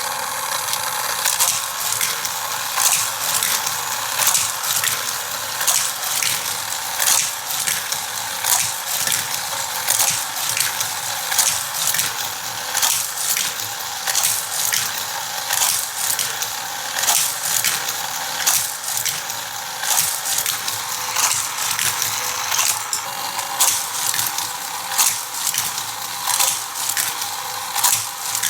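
Motorized power booster of a Hot Wheels track set whirring, with a steady plastic clatter and sharp clicks as die-cast toy cars are driven through it and along the track. Louder clicks come about once a second.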